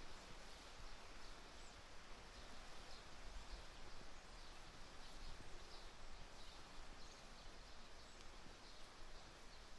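Faint birdsong: short chirps repeating about once a second over a steady background hiss.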